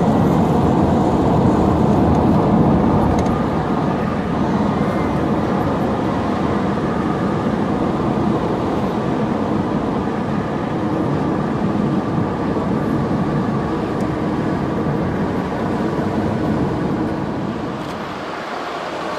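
Steady road and engine noise of a car heard from inside the cabin while driving on a highway; the low rumble thins out near the end.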